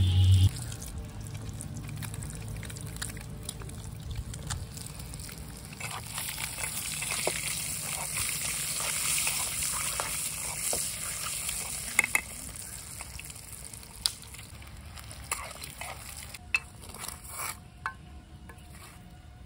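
Boiled eggs sizzling in hot oil in a small aluminium pan over a wood fire, the sizzle growing louder partway through, with a metal spoon clicking and scraping against the pan several times as the eggs are stirred.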